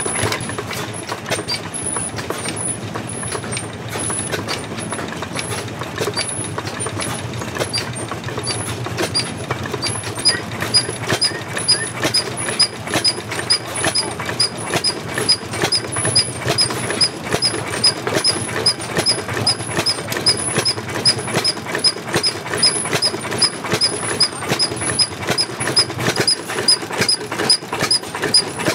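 Vintage stationary engine running with a steady, even beat of firing strokes, each stroke carrying a sharp high tick; the beat becomes clear and regular about ten seconds in.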